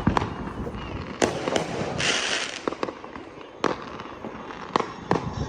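New Year's Eve fireworks going off: a string of sharp bangs, about eight in all, over a continuous rumble of more distant bursts, with a half-second hiss about two seconds in.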